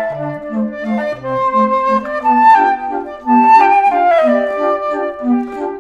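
Background music: a melody line over a repeating bass line.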